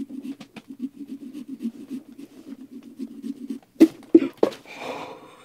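Pumpkin carving saw strokes through pumpkin flesh: a fast, rhythmic rasping with small clicks. About four seconds in come three sharp, loud knocks.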